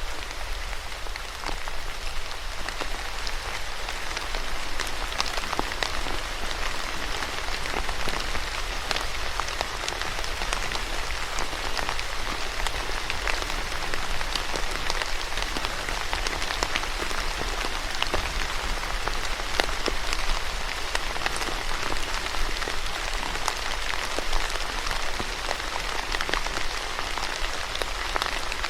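Steady rain falling on a surface, with many individual drops ticking through a dense hiss.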